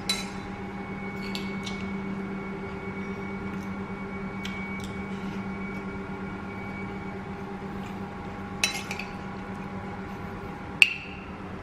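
Metal spoon and fork clinking and scraping on a ceramic plate of fried rice while eating: a handful of separate clinks, the sharpest near the end. A steady hum runs underneath.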